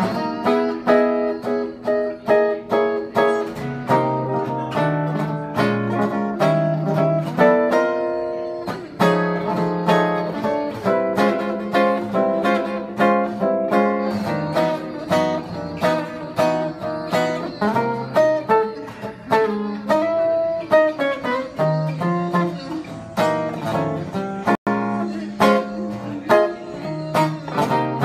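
A solo jazz guitar plays an instrumental chorus: single-note lines and chords over stepping low bass notes, with no singing.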